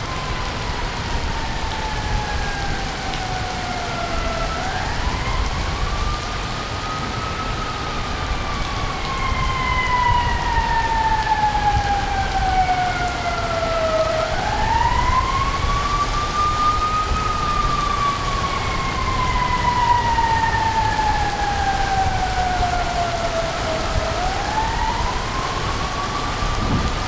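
Steady rain with a siren wailing over it. The siren goes in slow cycles about every ten seconds: a quick rise in pitch, then a long slow fall.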